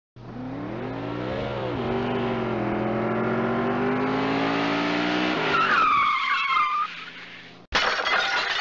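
Car engine revving and accelerating, its pitch climbing, then tyres squealing about five and a half seconds in. A sudden loud sound cuts in near the end.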